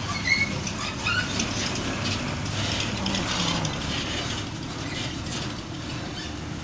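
Heavy trucks with tarpaulin-covered trailers driving past: diesel engines running with the rattle and clank of the trailers. A few short high squeaks come in the first second and a half.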